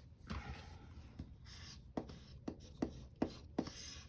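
Paper sticker being placed and pressed down onto a planner page: a brief scratchy rub of fingers on paper, then five light taps about half a second apart.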